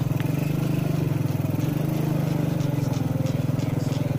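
Small motorcycle engine running steadily at an even speed, with a low, fast-pulsing hum.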